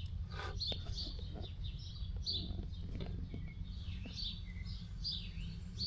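Songbirds chirping, with many short high notes in quick succession, over a steady low rumble and a few faint knocks.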